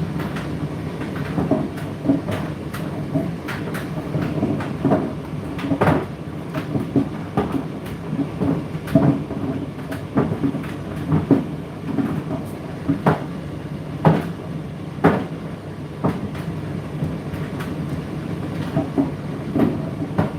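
Indesit IDC8T3 condenser tumble dryer running mid-cycle: a steady motor and drum hum, with irregular knocks as the laundry tumbles and drops inside the drum.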